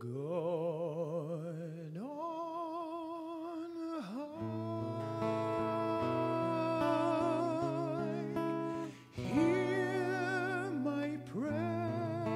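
A male tenor singing slow, held notes with vibrato, phrase by phrase, accompanied by an acoustic guitar.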